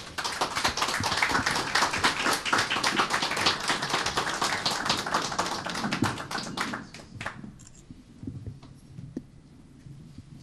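Audience applauding: dense clapping that dies away about seven seconds in, leaving faint room noise with a few scattered knocks.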